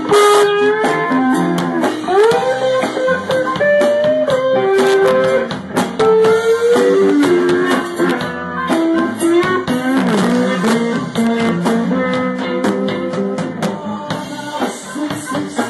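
Telecaster-style electric guitar played slide-style with a shot glass as the slide, its notes gliding up and down between held pitches, in a blues band with a drum kit.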